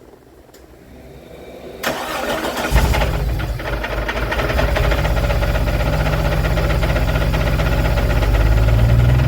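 Jeep 4.0 L inline-six engine cranking and catching about two seconds in, then idling rough with a loud, rapid, even knock. The engine runs as if down at least one cylinder, and the knock appeared after the engine was rebuilt with new pistons and rings.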